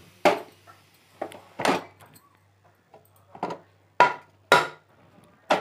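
Aluminium pressure cooker lid being turned open and lifted off, its pressure already released: a series of sharp metallic knocks and clanks, about seven in all.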